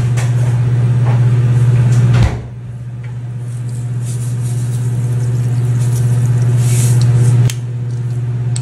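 A loud, steady low hum that dips suddenly about two seconds in and again near the end. Near the end comes a short soft hiss as salt is sprinkled over top-shell snails in a pot of water, then a click.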